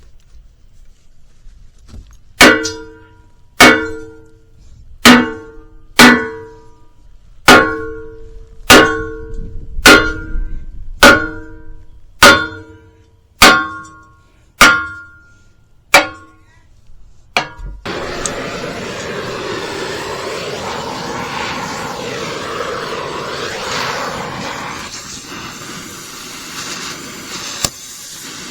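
About a dozen hammer blows on the steel of a skid steer wood splitter, roughly one a second, each ringing briefly, to knock off a partly cut-away piece. About eighteen seconds in, background music takes over.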